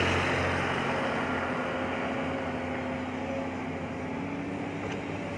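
A large excavator's diesel engine running steadily, a constant hum that eases slightly in loudness.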